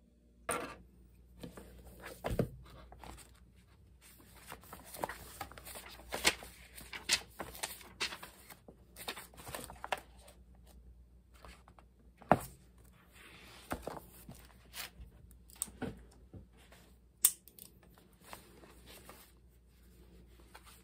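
Paper rustling as the pages of a small notebook are turned and handled, with a ballpoint pen scratching across the paper and a few sharp clicks and taps.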